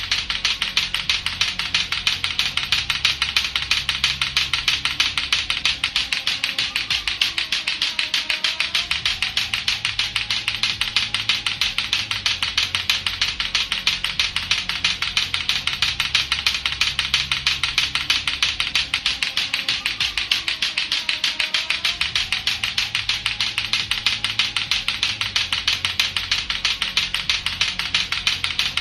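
Latto-latto clackers, two hard plastic balls on a string, clacking against each other in a rapid, steady, unbroken train of sharp clicks. Music with low bass plays underneath.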